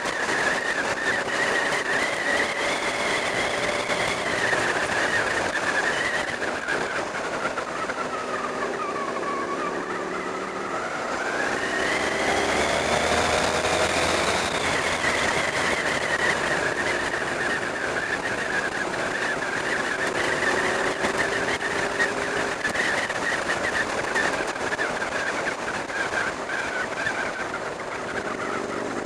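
Sport motorcycle's engine running at road speed under a rush of wind noise. About nine seconds in the engine note drops as the throttle comes off, then climbs back up a few seconds later as it accelerates again, settling into a steady cruise.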